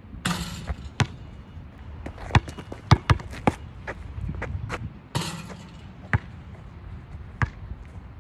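Basketball dribbled on an asphalt court: sharp bounces at uneven intervals, several close together in the middle, with two brief hissing noises, one near the start and one about five seconds in.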